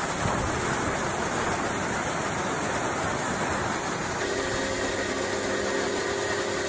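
Small electric pressure washer's jet spraying water onto a concrete driveway, a steady hiss. About four seconds in, the steady hum of the washer's motor and pump joins the hiss.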